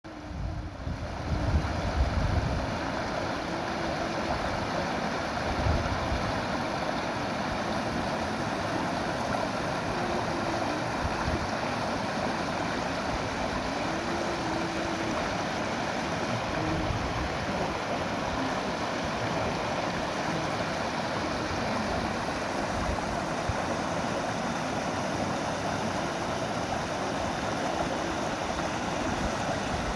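Running water flowing steadily, a stream's even rushing, with a few low gusty rumbles of wind on the microphone near the start.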